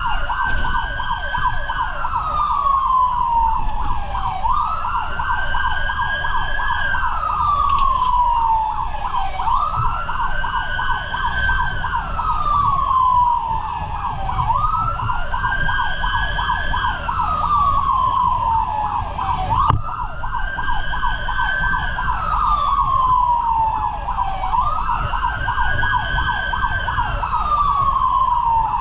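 Fire truck siren wailing, each cycle rising quickly and then falling slowly, about every five seconds, with a second, rapidly pulsing steady tone underneath. Engine and road rumble run beneath it.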